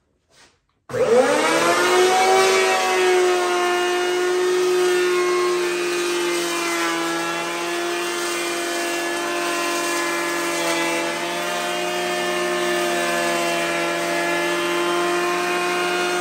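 Makita KP312 wide electric beam planer switched on about a second in, spinning up with a rising whine and then running at a steady whine while it cuts along a timber beam with freshly installed blades.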